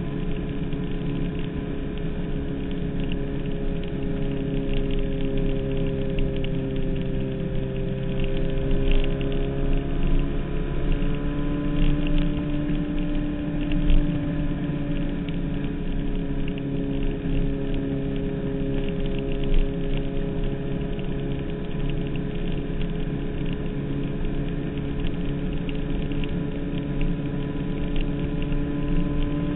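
Suzuki Hayabusa 1300's inline-four engine running at steady cruising revs, heard from on board over a rush of wind noise. The engine note shifts up slightly about ten seconds in and then holds.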